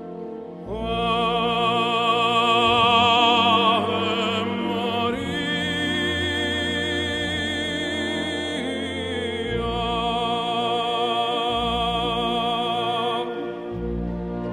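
Operatic-style music: a voice holds long notes with wide vibrato over orchestral accompaniment, moving to a new note about five seconds in and again near ten seconds.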